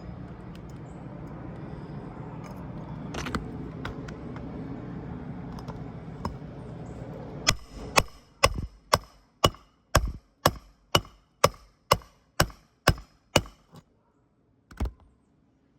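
Hammer driving roofing nails through an asphalt shingle: a steady run of about fourteen sharp blows, two a second, starting about halfway in, then one more blow near the end. Before the hammering there is a steady low noise with a single knock.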